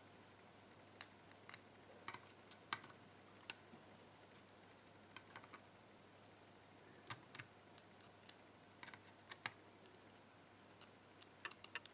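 Light, irregular clicks and taps of small lock parts and tools being handled while a pin-tumbler lock is reassembled, with a quick run of clicks near the end.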